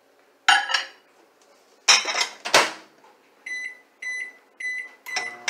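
A microwave oven is loaded and shut with a few loud clunks, then four short keypad beeps as the heating time is entered. The oven starts running with a low hum near the end.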